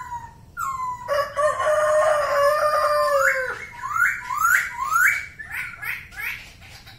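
Poksay (laughingthrush) singing loudly: a falling note, then a long held note, then a run of about seven rising whistled notes roughly two a second.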